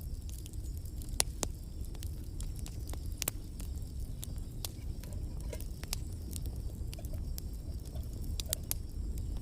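Steady low rumble of rain and wind, with scattered sharp ticks at irregular intervals.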